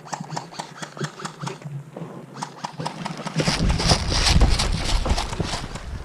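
Quick footsteps on wooden boards, a rapid string of knocks and clicks about five or six a second. About three and a half seconds in, a heavy low rumble joins the steps.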